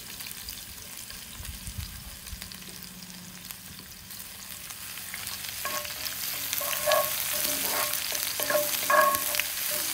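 Sliced onions and garlic sizzling in oil in a cast-iron skillet, the frying growing louder about halfway through. A wooden spoon stirs them, scraping and knocking against the pan several times near the end.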